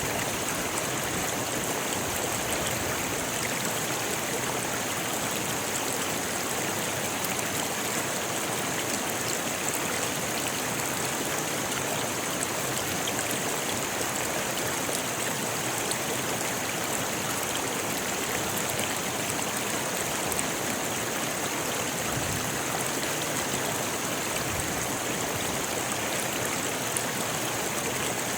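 A rocky river rushing and splashing over stones in a steady, unbroken wash of water noise.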